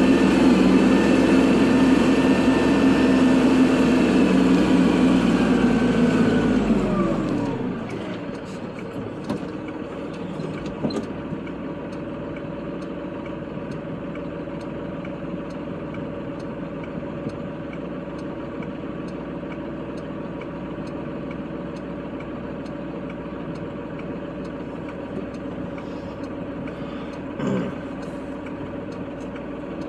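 Kubota tractor's diesel engine running at high revs, then winding down with a falling pitch to a steady idle about seven seconds in. A few light clicks and one short thump sound near the end.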